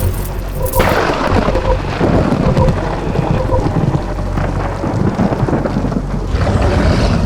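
Thunderstorm sound effect: rain falling with rolling thunder, a loud crack of thunder about a second in and another swell near the end.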